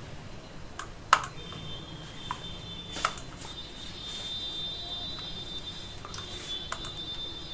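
Scattered sharp clicks from a computer mouse and keyboard being worked, about six in all, over a faint steady high whine and low room hum.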